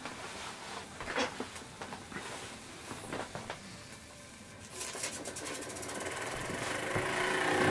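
Miniature brass steam engine (SunnyTech QJ-05) heated by a small alcohol lamp: a few scattered light clicks, then about five seconds in, once the flywheel is flicked by hand, the single piston catches. The engine runs with a rapid, even ticking that grows louder toward the end as it picks up speed.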